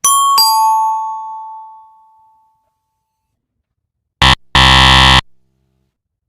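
Quiz-show sound effects: a two-note falling chime (ding-dong) that rings out over about two seconds, then a harsh buzzer sounding once briefly and once longer. These are the TV cues for a correct answer and a wrong answer.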